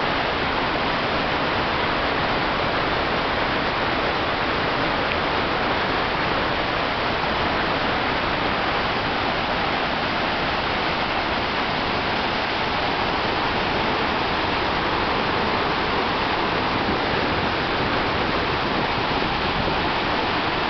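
White water of Murchison Falls, the Nile forced through a narrow rock gorge, rushing in a steady, unbroken roar of noise.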